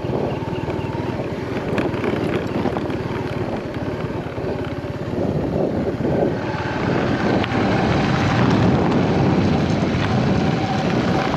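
Small Honda motorcycle engine running at low speed, with wind buffeting the microphone; the engine grows louder about six seconds in.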